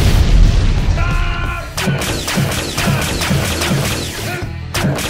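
Added explosion and gunfire sound effects, with booms and sharp crashes, over action music with a steady low beat about twice a second. A short held pitched sound comes in about a second in.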